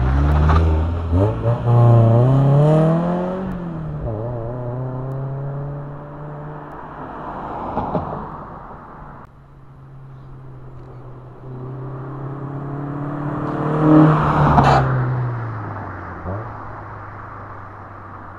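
Toyota AE86 Corolla GT-S twin-cam four-cylinder through an HKS Sport exhaust, revving up as it pulls away and fading into the distance. It then comes back, loudest as it passes about fourteen seconds in, its pitch dropping as it goes by and fades.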